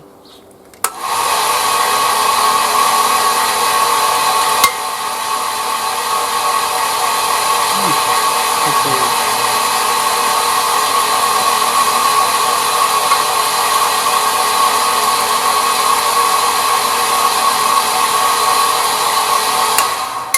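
Homemade wood lathe's motor, taken from a washing machine's spin dryer, running steadily at about 3000 rpm with a steady whine. It starts about a second in, gives a click about five seconds in, and stops near the end.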